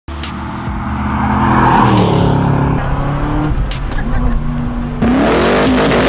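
A car's engine passing, its note swelling and then falling. About five seconds in there is a sudden cut to a C5 Corvette's V8 revving, its exhaust note climbing and then held.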